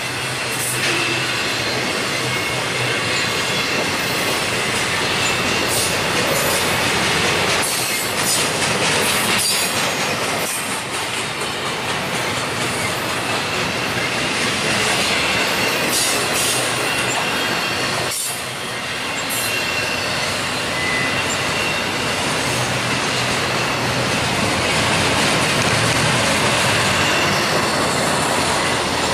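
Loaded double-stack intermodal well cars rolling past close by: a steady rumble and clatter of steel wheels on rail, with a thin high wheel squeal running through it and occasional knocks.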